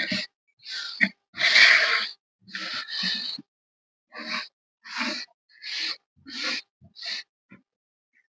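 Gym chalk being crushed and crumbled: a series of short crunching bursts, about ten in all, each cutting off abruptly into silence, with the longest about a second and a half in.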